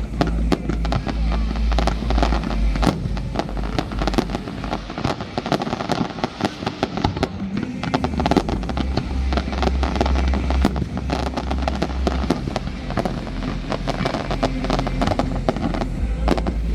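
Aerial fireworks display going off in quick succession: many sharp bangs and crackles over a continuous low rumble, which eases for a few seconds in the middle.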